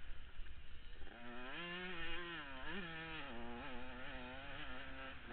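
KTM 105 supermini's two-stroke single-cylinder engine racing on a motocross track: after a rough first second with little engine tone, the engine comes back on throttle about a second in, its pitch rising and falling as the rider works the throttle, with a quick blip near the middle, then holding a steady high rev.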